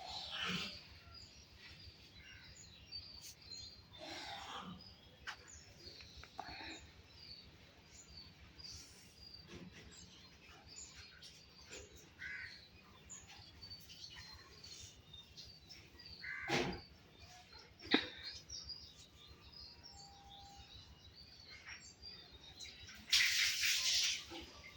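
Pet parrots chirping, with many short high calls scattered throughout. There is a sharp click about 18 seconds in, and a short, louder rush of noise near the end.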